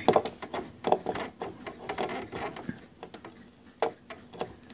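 Old adhesive cutting strip being picked and peeled by hand out of the plastic channel of a Silhouette cutting machine: irregular small scratches and clicks, with one sharper click about three-quarters of the way through.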